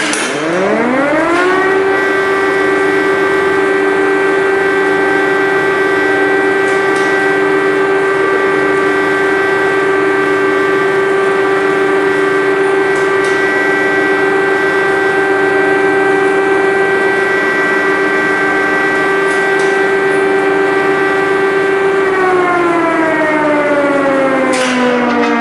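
Air-raid siren sounding an air-attack alert. Its pitch rises over about two seconds to a steady tone, holds for most of the time, then starts to wind down and fall about three seconds before the end.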